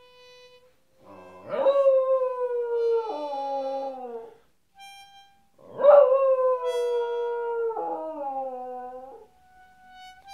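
A Cairn terrier 'singing': two long howls, each swooping up and then slowly sliding down in pitch, with a break in the voice near the end of each. Short steady tones sound between the howls.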